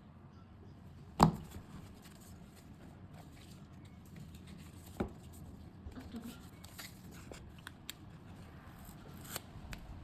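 Unboxing handling of a smartphone box and its packaging: a sharp click about a second in, a lighter knock around five seconds, and scattered light scraping, tearing and rustling of cardboard and paper between them.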